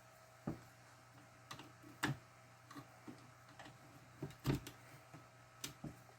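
Faint, irregular clicks and taps of small tools and wires being handled while soldering a servo wire, about nine in all, the loudest about half a second in and around four and a half seconds in, over a low steady hum.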